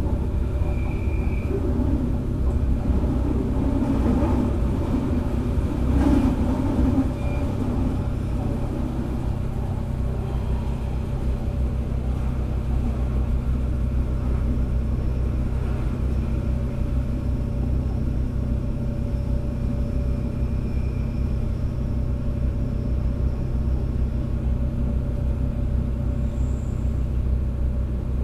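Inside a Bombardier Desiro Classic (DB class 642) diesel railcar under way: steady low rumble of its diesel engines and wheels running on the track.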